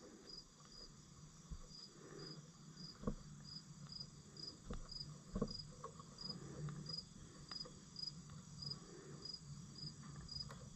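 A cricket chirping steadily, a short high chirp about twice a second, with a few faint clicks and knocks.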